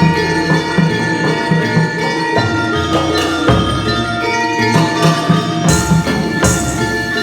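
Javanese jaranan gamelan ensemble playing: struck metal keys ring in melody over a steady, quick drum pattern, with a bright metallic crash about six seconds in.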